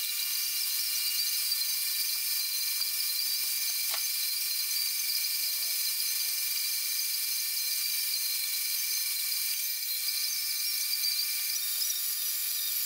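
Milling machine spindle running with a steady high-pitched whine as a milling cutter cuts spline grooves into an axle shaft held in an indexing head.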